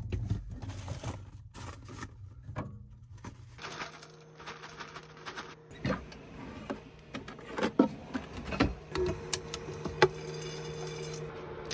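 Kitchen handling noises in a small van kitchen: a fridge being opened, a drawer pulled out, and a pan and utensils knocking and clicking on a cooktop, in irregular sharp knocks. A steady low hum comes in about four seconds in.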